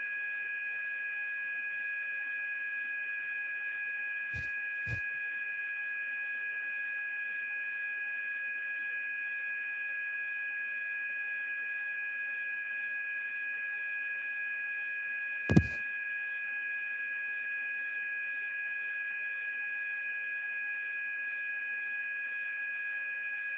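A steady two-pitch electronic tone over a telephone line, with two faint clicks about four and a half seconds in and a single short knock about fifteen seconds in.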